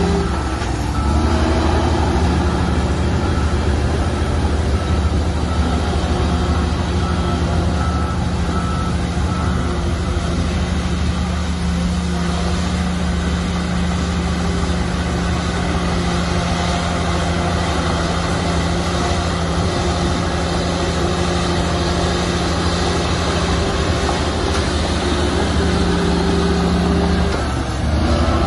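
Shantui crawler bulldozer's diesel engine running steadily under load, dipping briefly just after the start and again near the end. For the first ten seconds or so a reversing alarm beeps in a steady series of short beeps.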